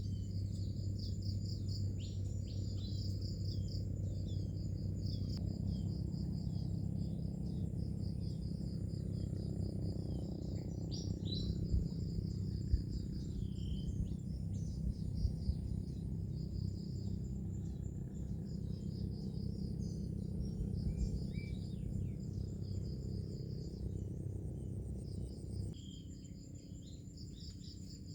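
Crickets or similar insects chirping in a rapid, pulsing trill, with birds calling in short chirps and quick falling notes over them, above a steady low background that drops away near the end.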